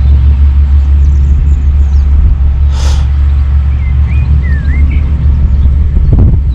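Wind buffeting the microphone in a steady low rumble, with a few short bird chirps about four seconds in and a brief hiss near the three-second mark.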